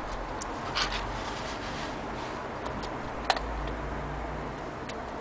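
Antique HAC German wall clock ticking as its pendulum swings: scattered short ticks, one sharper than the rest about three seconds in, over a steady background hiss.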